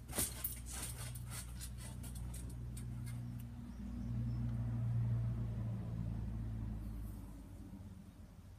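A motor vehicle's low engine hum swells and fades, loudest about halfway through, as if driving past. In the first few seconds there is a run of quick clicks and taps.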